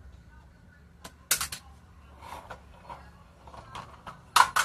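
Sharp clicks and knocks of something hard: a quick cluster about a second in and another louder cluster near the end, with faint scattered ticks between.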